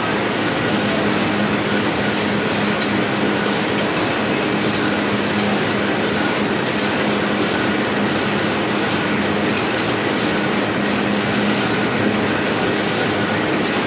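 Sack printing press running: a loud, steady mechanical noise with an even hum and faint high-pitched pulses repeating about once a second.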